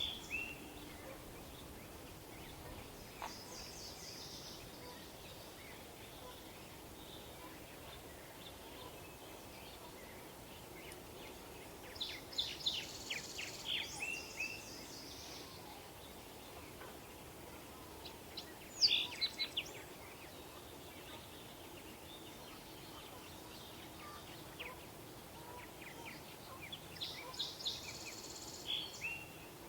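A sparrow singing several short songs of quick high notes, buzzy trills and down-slurred whistles, spaced several seconds apart, over a steady low background hum.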